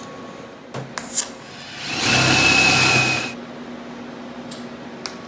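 A small power tool runs for just over a second with a steady high whine, after a couple of sharp clicks.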